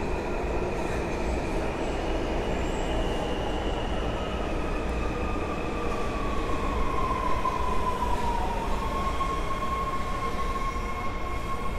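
Subway train running: a steady low rumble with high whines over it, one of which slides down in pitch about halfway through and then holds steady.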